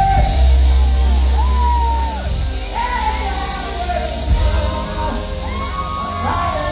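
A singer's voice holding and gliding through a melody over live band accompaniment, with a heavy bass that is loudest in the first two seconds.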